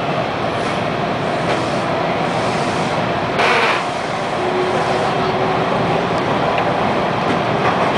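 Bombardier T1 subway train running through a tunnel, heard from inside the car: a steady rumble of wheels and motors, with a brief louder rush of noise about three and a half seconds in.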